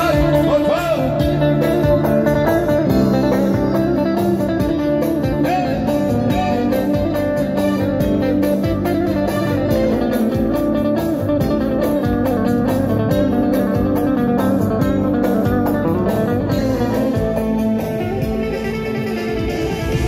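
Live arabesk band music played loud over a PA: a plucked long-necked saz (bağlama) carries the melody over keyboards and a steady beat.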